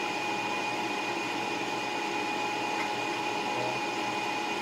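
Steady whirring hum with two thin constant whines, from a running appliance motor; no change through the stretch.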